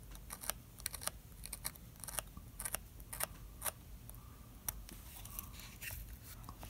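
X-Acto knife blade scraping the enamel coating off thin enameled copper magnet wire: faint, short, irregular scratchy clicks, about two a second.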